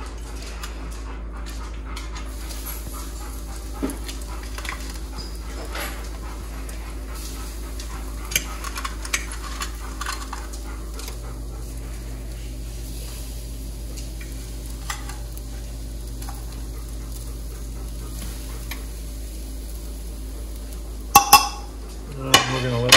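Breaded fish fillets frying in butter in a hot cast-iron skillet: a steady sizzle with occasional light ticks, and a few sharp knocks near the end.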